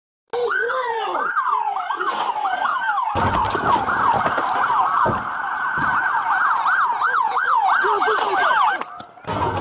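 Police sirens rising and falling in quick sweeps, more than one sounding at once, the sweeps growing faster into a yelp toward the end. A rushing noise joins about three seconds in, and the sound drops out briefly near the end.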